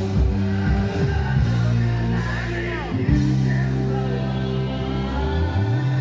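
Live rock band playing, with held bass and guitar chords that change every second or two.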